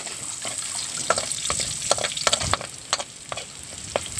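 Chopped garlic sizzling in hot oil in a wok while a metal spoon stirs it, clicking and scraping against the pan about three or four times a second over a steady hiss.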